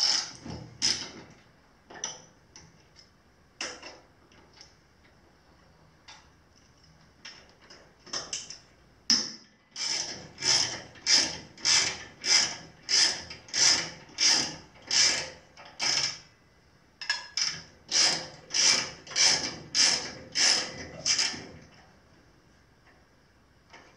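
Socket ratchet wrench working a bolt loose on the jointer's cutterhead assembly, with a few scattered clicks and then two long runs of quick ratcheting strokes, about three a second.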